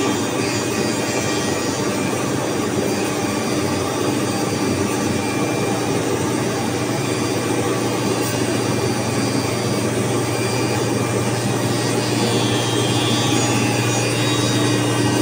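Woodstar CNC router running: its spindle and cutter grooving a white board make a steady mechanical noise, with a low hum that grows stronger about two-thirds of the way through.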